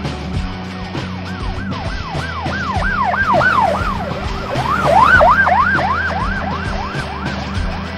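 Police siren in a fast yelp, swooping up and down about four times a second. It grows louder to a peak about five seconds in and then fades, over a steady rock music backing with a beat.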